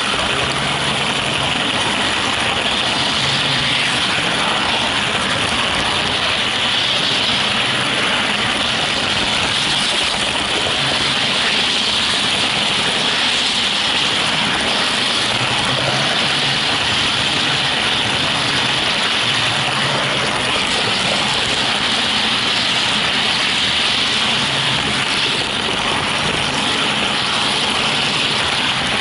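HO scale model train running steadily along its track, heard from a camera riding aboard it: an even, unbroken running noise with a strong high hiss.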